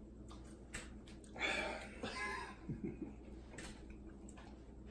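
Faint mouth sounds of a man chewing a piece of extremely hot chili chocolate: small wet clicks, and a sharp breath about a second and a half in, from the burning heat.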